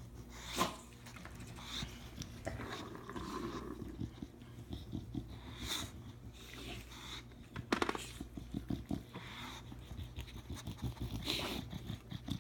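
English bulldog sniffing and breathing noisily as it noses at its toys, with a few sharp clicks and knocks scattered through, the loudest about eight seconds in.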